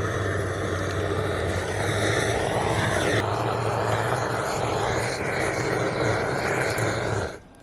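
A small electric motor with a fan running steadily with a low hum and a rush of air, then switched off suddenly near the end.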